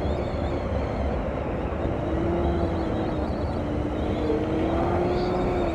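Side-by-side UTV engine running steadily at speed on a dirt track, its note drifting gently up and down over a dense low rumble.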